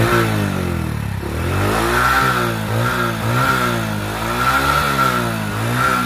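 Freshly rebuilt motorcycle engine being revved in repeated throttle blips, its pitch rising and falling several times: a test run after a full engine overhaul, checking that it runs clean.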